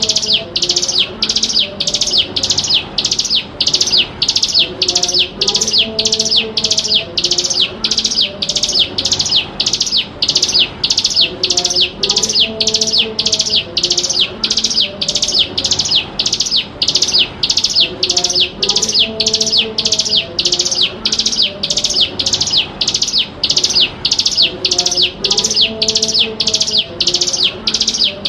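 Hill prinia (ciblek gunung) calling: one sharp, high note repeated very evenly about twice a second without a break. A fainter low background sound repeats every few seconds underneath.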